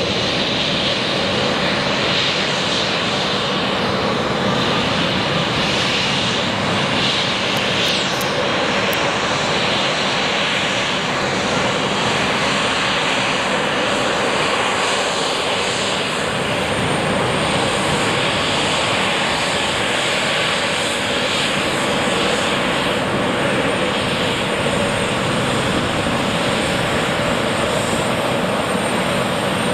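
The Embraer 195's two GE CF34-10E turbofan engines running at low taxi thrust: a steady jet whine with a thin high-pitched tone over it, louder in the second half.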